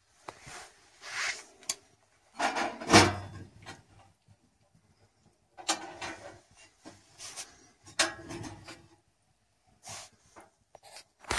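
A wood stove's metal door and its round air vent being handled: a series of short scrapes and rubs, with a heavier clunk about three seconds in as the door is opened onto the fire, then more short scrapes and knocks.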